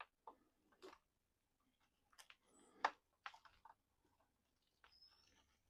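Near silence, broken by faint scattered clicks and light handling noises of small plastic parts, the sharpest click about three seconds in.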